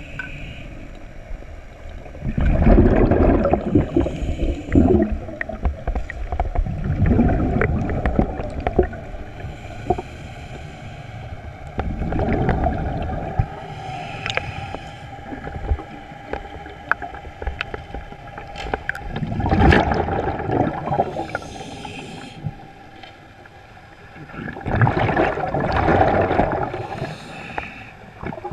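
Scuba diver breathing through a regulator underwater: a burst of exhaled bubbles every five or six seconds, with a fainter hiss of inhalation between them.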